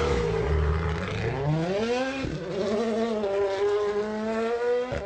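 Rally car engine accelerating hard: its pitch climbs over the first two seconds, drops briefly at a gear change, then holds at high revs and creeps up again.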